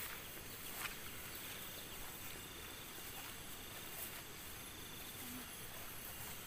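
Steady high hiss of insects in a grassy field, with a few brief rustles from walking through the tall grass, about a second in and again at four seconds.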